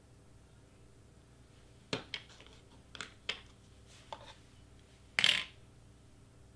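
Craft tools handled on a cutting mat: a hot glue gun and tweezers set down and picked up, giving a few sharp clicks and light knocks, then one louder, slightly longer clatter a little after five seconds in.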